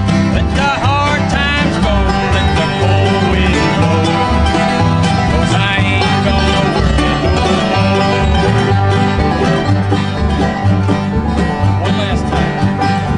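Acoustic bluegrass music played live, with picked banjo and guitar over a steady bass rhythm.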